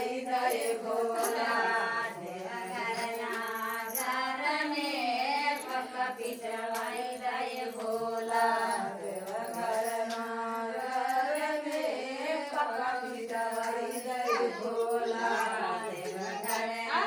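Women singing a devotional folk song (bhajan) to Lord Shiva, a sustained melodic line.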